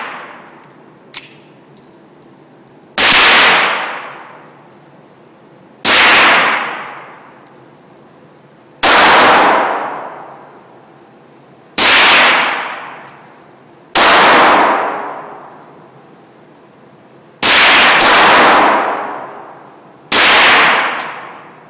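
Ruger SR22 .22 LR semi-automatic pistol fired eight times, slow single shots about two to three seconds apart, with two fired close together near the end. Each sharp crack rings on with a long echo that fades over a second or so in the enclosed indoor range.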